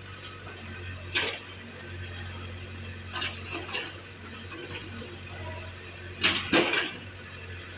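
An engine running low and steady, with metal clanking and clinking a few times, the loudest clanks about six seconds in.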